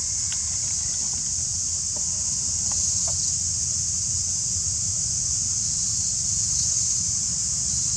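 Outdoor ambience: a steady high-pitched drone over a low rumble, with a few faint short calls in the first three seconds.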